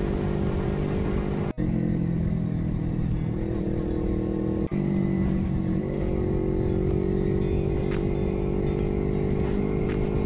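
Sport motorcycle engine running steadily at road speed, its note rising slightly over the last few seconds as it picks up speed. The sound cuts out for an instant twice.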